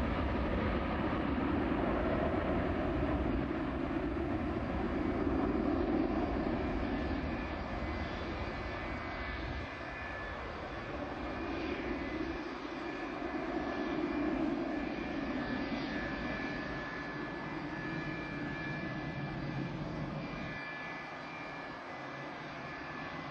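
Boeing 727's Pratt & Whitney JT8D turbofan jet engines running, a steady roar with a thin high whine, slowly growing a little fainter over the last part.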